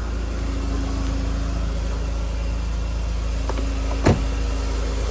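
Mercedes-Benz W124 300E's straight-six engine idling steadily, started cold about a minute earlier. A single sharp knock about four seconds in.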